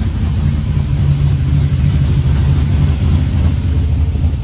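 Turbocharged LS V8 engine idling steadily.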